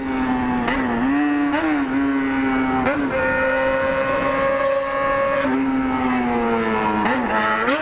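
Yamaha XJ6 inline-four motorcycle engine running as a steady, high-pitched drone. Its pitch dips and wobbles briefly with small throttle changes: about a second in, near three seconds, and twice near the end.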